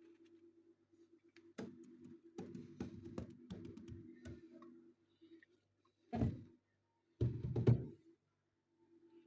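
Washing machine running with a faint low hum, with a run of clicks and knocks a couple of seconds in and two heavier thumps near the end.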